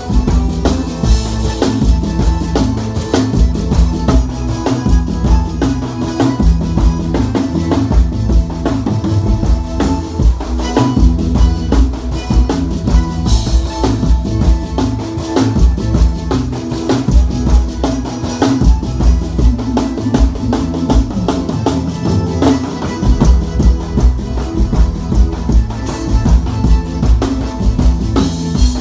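Live band playing an instrumental passage, with a drum kit keeping a steady beat of kick and snare under bass and other instruments.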